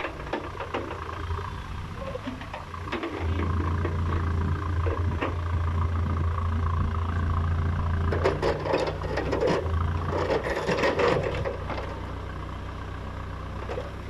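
Komatsu WB97 backhoe loader's diesel engine running as the backhoe digs, its note rising and getting louder about three seconds in and easing off around seven seconds. Between about eight and eleven and a half seconds the bucket clanks and scrapes against soil and stones, the loudest part.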